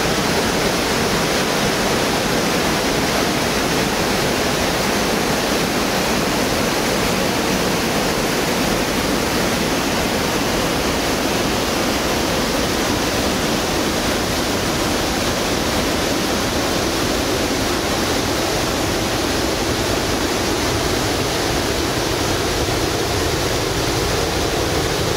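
Steady rushing of the river Vis pouring over a weir cascade and through rapids.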